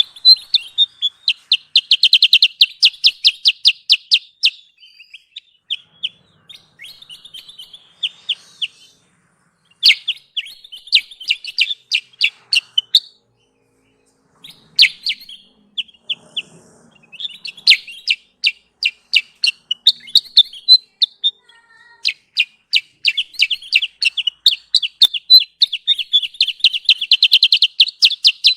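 Kutilang sutra bulbul calling, the lure call used to attract wild birds. It gives long runs of rapid, high chattering notes, broken by short pauses and one brief silence about halfway through.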